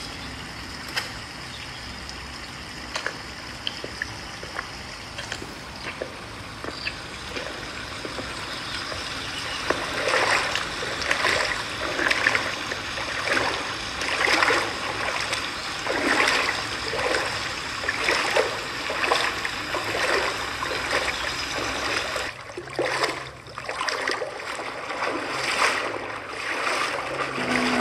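Water splashing and trickling. A low steady wash with scattered small clicks gives way, about a third of the way in, to louder splashes coming roughly once a second.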